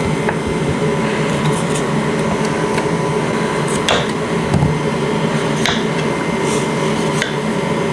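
A steady mechanical hum of a running kitchen appliance, with a few short light clicks and knocks scattered over it.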